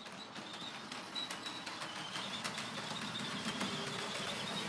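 HO-scale Rivarossi diesel model locomotive running on track with momentum on, slowly gathering speed: a low motor hum that slowly grows louder, a faint high wavering squeal, and scattered small clicks. The owner finds it kind of noisy and thinks it probably needs lubrication.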